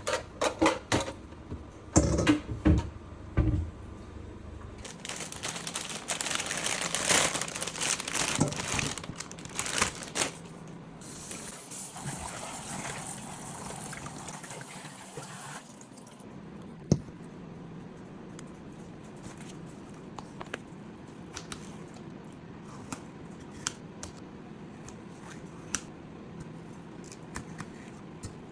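Kitchen tap running, as when sweet peppers are rinsed, with a few knocks and clatters just before it. After the water stops, scattered light clicks and taps, like knife work on a cutting board.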